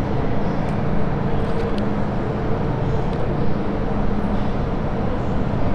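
MTR M-Train electric multiple unit pulling out of an underground station platform: a steady low rumble from the train's running gear and traction equipment, with a faint steady hum.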